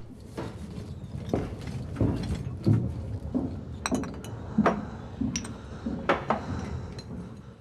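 Scattered light clinks and knocks over a low steady rumble, with a few sharper clinks in the second half.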